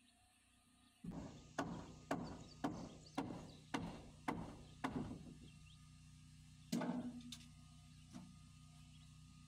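Hammer driving nails into rough-sawn board trim: a run of about eight sharp strikes at roughly two a second, then a harder one and a couple of lighter ones, over a low steady hum.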